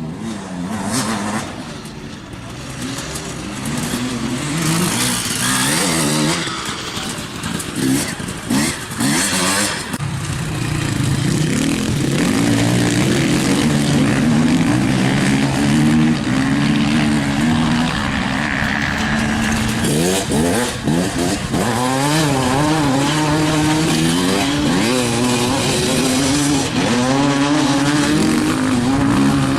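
Off-road vehicle engine running hard, its pitch stepping up and down as the throttle and gears change, with bursts of noise during the first ten seconds.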